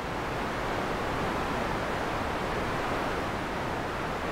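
Synthesized wind made in Pure Data: a steady rush of filtered noise, centred in the mid range, swelling gently in gusts.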